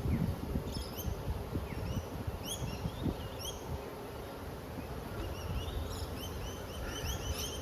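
Honey bees buzzing around an opened hive, with birds chirping repeatedly in the background.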